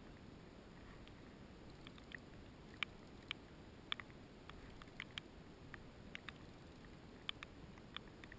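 Faint, sharp clicks from a fishing reel, about a dozen at irregular intervals, as a hooked fish is played on a bent rod, over a low hiss of wind and water.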